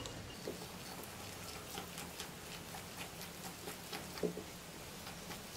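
Wire whisk stirring a thick, lumpy mix of flour, egg and milk in a glass bowl, with quiet, irregular ticks and scrapes of the wires against the glass.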